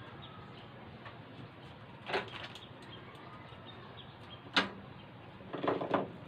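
Handling sounds from latex balloons and decorations being worked by hand: a short rustle about two seconds in, a sharp click about four and a half seconds in, and a quick cluster of rubbing squeaks and rustles near the end, over a low background hiss.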